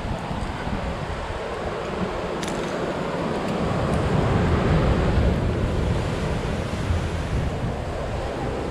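Ocean surf washing against the shore with wind buffeting the microphone, a steady rush that swells louder in the middle.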